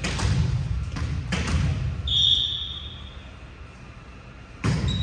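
Volleyball being played in a gym: three sharp ball hits, ringing in the hall, with a short high squeak about two seconds in.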